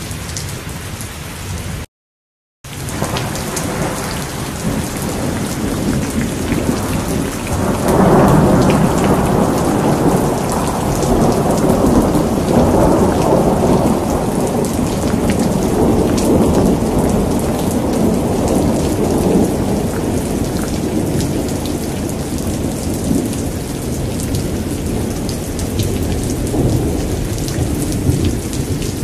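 Steady heavy rain with a long roll of thunder. After a brief moment of total silence near the start, the thunder rumble builds, is loudest about eight seconds in, then slowly fades while the rain keeps falling.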